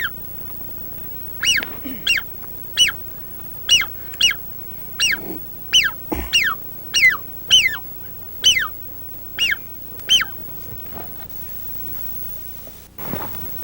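A string of high whistled duck calls, each a short note sliding downward, one or two a second, over a dozen in all, stopping about ten seconds in.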